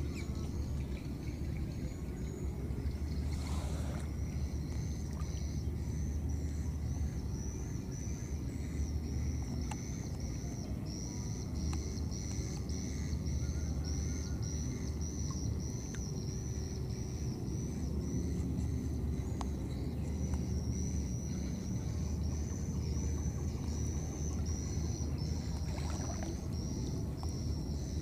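Outdoor ambience over floodwater: a steady low rumble, with a thin, high call repeated evenly about one and a half times a second by a bird or insect. There is a brief rustle a few seconds in and another near the end.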